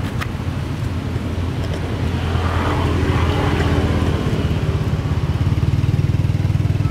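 A small engine running steadily: a low drone that takes on a fast, even pulse about halfway through.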